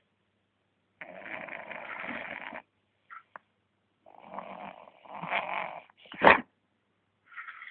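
Dog snoring in its sleep: several noisy snoring breaths about a second long each, then a short, sharp snort about six seconds in.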